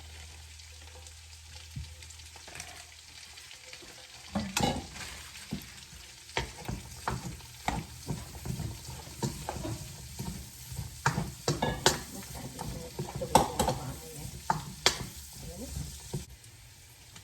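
Freshly added cabbage and carrots sizzling in a hot pan as they are stirred and tossed. A steady sizzle at first, then from about four seconds in, frequent irregular scrapes and knocks of the utensil against the pan.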